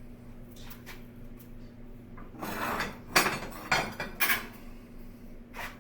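Metal tools or hardware being handled: a short scrape, then three sharp metallic clanks about half a second apart and a lighter knock near the end, over a steady low hum.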